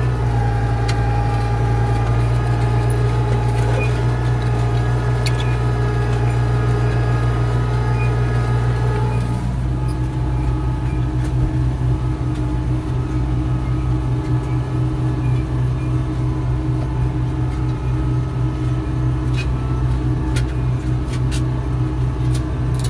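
Farm tractor engine running steadily while pulling a disc harrow through a field. About nine seconds in, its pitch drops slightly and the sound turns rougher, with scattered clicks and rattles.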